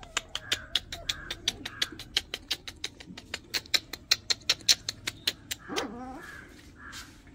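A rapid run of sharp clicks, about five a second, made to call a litter of puppies, with faint puppy whimpers and a short rising yelp near six seconds in.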